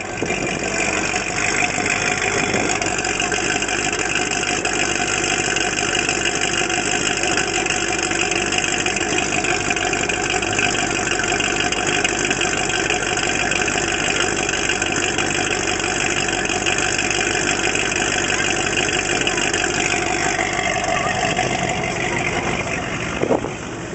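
Corvette Z06's V8 idling steadily through its twin exhaust tips.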